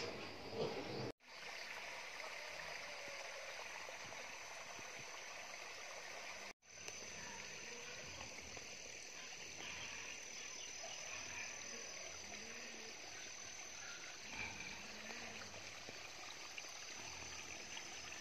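A moment of pigs in their pens, then a small stream trickling, with a steady high insect whine from a few seconds in and a few low frog calls. The sound cuts out briefly twice.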